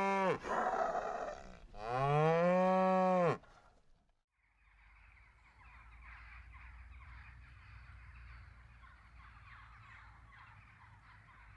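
Beef cattle mooing: the tail of one moo, then a single long, loud moo that cuts off suddenly. After that, a faint, continuous chatter of a distant flock of birds calling.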